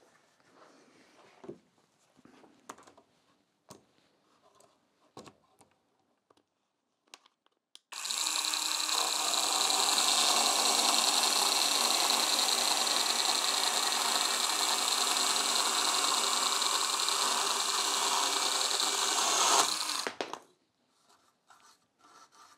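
Einhell GE-PS 18/15 Li BL cordless brushless pruning chainsaw with a 15 cm bar cutting through a squared timber beam along a marked line. The saw runs steadily under load for about twelve seconds from about eight seconds in, then stops suddenly; a few faint handling clicks come before it.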